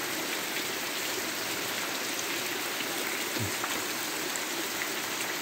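Heavy rain falling steadily on muddy ground and trees, a continuous even hiss of rain.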